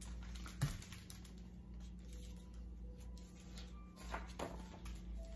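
Picture book being handled and its page turned: a few short paper rustles and soft knocks, the sharpest about half a second in, over a low steady hum.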